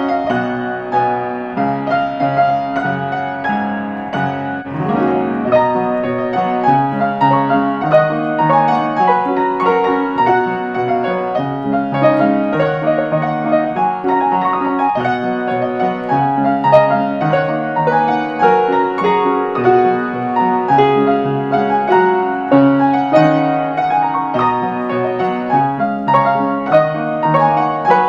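Piano music playing: a flowing melody of quick notes over sustained chords at a steady level.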